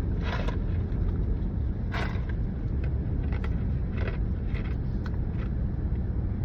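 Steady low road rumble inside a moving car, with about six short, sharp crunches of ice being chewed.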